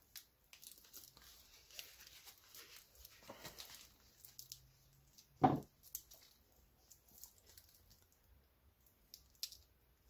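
Thin plastic wrap crinkling and rustling as it is pulled off a wristwatch by gloved hands, with one short, louder thump about five and a half seconds in and a sharp click near the end.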